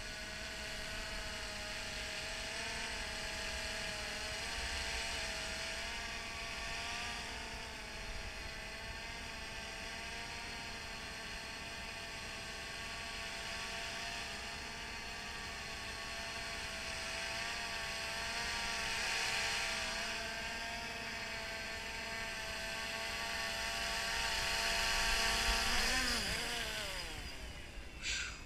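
DJI Phantom 2 quadcopter hovering: the propellers give a steady buzzing whine that wavers slightly in pitch as the motors adjust. It gets louder near the end as the drone comes in low, then drops steeply in pitch. A short sharp click comes just before the end.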